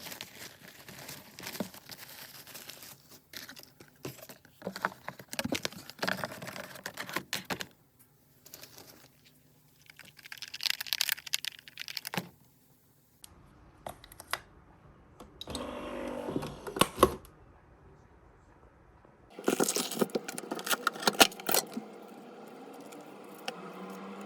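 Handling sounds in several short edited segments: irregular clicks, taps and crinkling, as of things being unpacked or handled.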